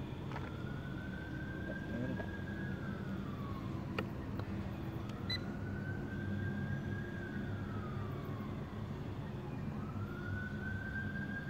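A siren wailing, its pitch sliding up, holding and sliding back down about every four and a half seconds, over a low steady hum, with a sharp click about four seconds in.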